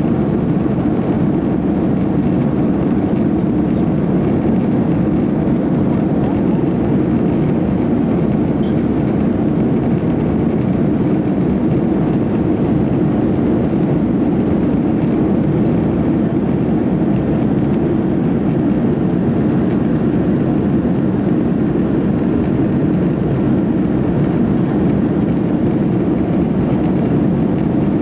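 Steady cabin noise inside a SATA Airbus airliner descending on approach with flaps extended: jet engines and airflow along the fuselage making a loud, even, low-pitched noise.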